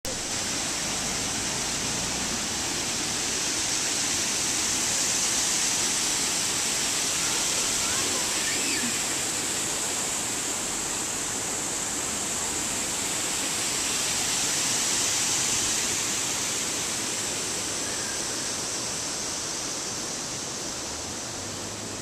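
Waterfall and river rapids rushing in a steady hiss. The rush swells slightly twice and eases off a little near the end.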